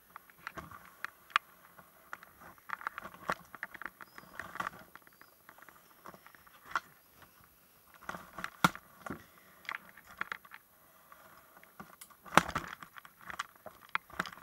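Scattered light clicks, taps and rustles in irregular clusters, with single sharp knocks about a second in, near nine seconds and near twelve seconds, the last the loudest.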